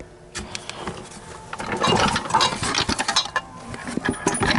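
Tristar vacuum canister being turned over and handled by hand: scattered clicks and knocks with a denser rattling stretch in the middle.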